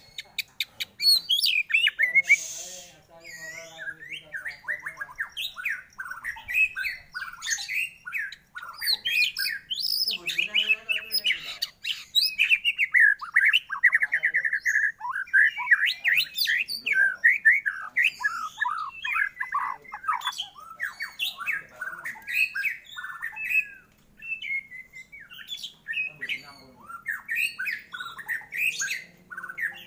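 White-rumped shama singing a long, varied song of quick whistled phrases, sweeps and trills with only brief gaps, including a harsh rasping note near the start and a rapid trill around the middle.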